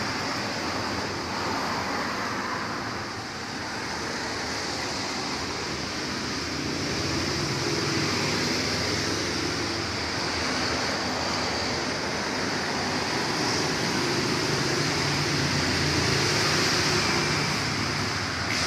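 Steady rushing noise of an aquarium's water circulation and aeration, with a faint low hum underneath.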